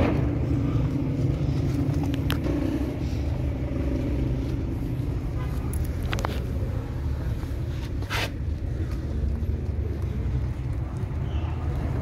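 Steady low mechanical hum of running machinery, with a few short clicks and a brief hiss about eight seconds in.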